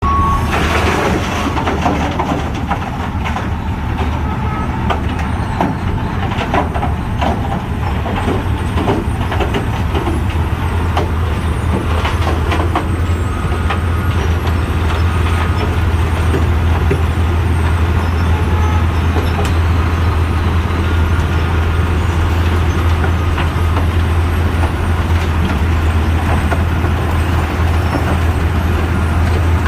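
Asphalt milling machine at work: its heavy diesel engine running steadily, with scattered crackles and clicks over the top, thickest in the first half.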